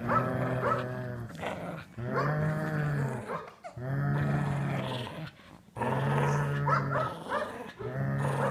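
Shetland sheepdog play-growling as she worries a pair of slippers: five long, drawn-out growls, each about a second and a half, with brief pauses for breath between them.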